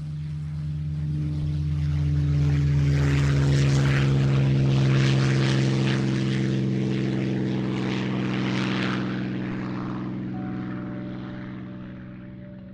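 Propeller-driven piston-engine aircraft flying past: a steady engine drone that swells to its loudest about four seconds in, then slowly fades away.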